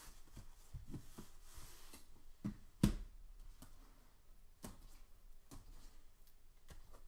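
Light clicks and taps of trading cards in hard plastic holders being handled and set down on a desk, with one sharper knock about three seconds in.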